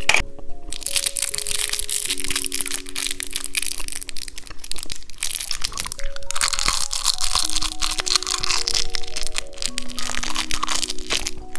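Small round candies from a snail-shaped whistle toy being crunched and chewed close to a microphone, a dense run of crackling crunches starting less than a second in. Soft background music of single held notes plays underneath.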